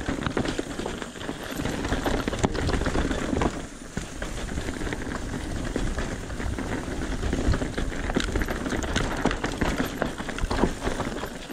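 Mountain bike rolling fast down a rocky trail: tyres crunching over loose stones and gravel and the bike rattling over the rocks, a steady crackly noise full of small knocks that dips briefly about four seconds in.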